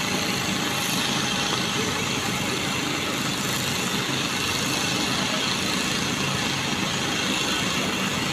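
Marble-quarry stone-cutting machinery running with a steady engine drone that does not change.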